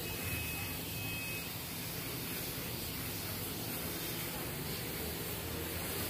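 Compressed-air gravity-feed spray gun hissing steadily as it sprays plastic primer onto a plastic car bumper, with a low steady hum underneath.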